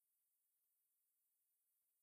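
Near silence: digital silence with only a faint high hiss.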